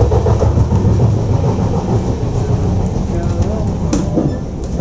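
Running noise of a moving passenger train heard from inside the coach: a loud, steady rumble of wheels on rails, with a sharp click about four seconds in.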